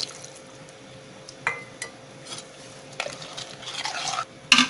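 Steel ladle stirring a watery mutton-and-yogurt mixture in a stainless steel pressure cooker pot, scraping and knocking against the sides. A few clicks come early, the stirring picks up after about three seconds, and there is a sharp metal clank near the end.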